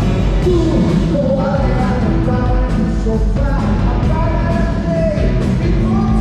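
Loud rock music: a singing voice over a band with drums.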